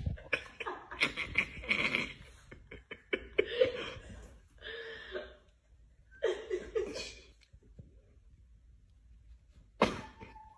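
Black Chihuahua snarling and growling in three rough bursts as another dog paws at its face, followed by a short sharp noise near the end.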